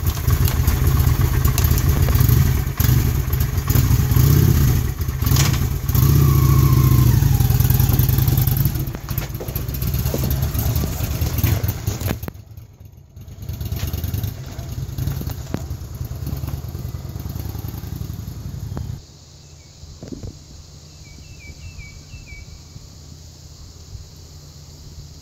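Honda Shadow V-twin motorcycle engine running loud and close, then fainter as the bike moves off. After about 19 s only a faint distant engine hum remains.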